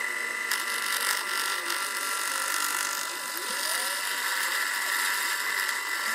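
Proxxon PF230 mill/drill head running with an end mill cutting a metal block, squaring its faces: a steady high motor whine under the irregular rasp and clicking of the cut.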